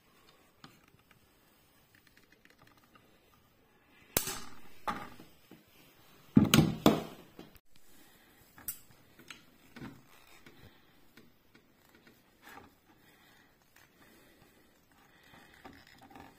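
Scattered clicks and clacks of a manual caulking gun being handled and its trigger squeezed while a bead of sealant is laid, loudest in a short cluster about halfway through.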